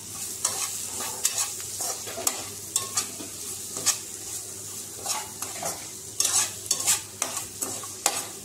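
Chopped onions, tomatoes and spices sizzling in a non-stick kadai as a spatula stirs them, its strokes scraping across the pan in short, irregular swishes over a steady frying hiss.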